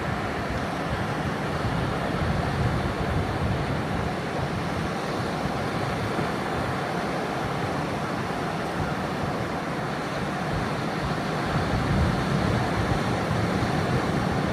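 Atlantic sea surf washing in a steady rush, swelling slightly near the end.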